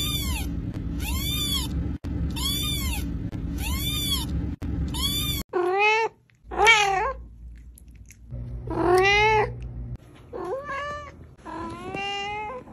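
A kitten meowing five times, about once a second, over a steady low hum. Then an adult cat meowing about five times, the calls longer and rising and falling in pitch.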